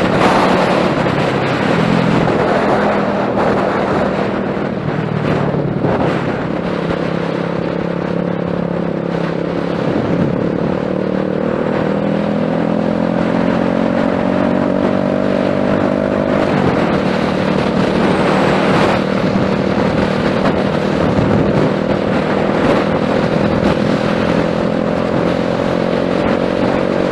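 Wolf Striker 125cc motorcycle's single-cylinder engine running under way at a steady pace, its pitch climbing slowly and then falling back about two-thirds through, with wind rushing over the microphone. The bike is running well on a freshly replaced carburetor.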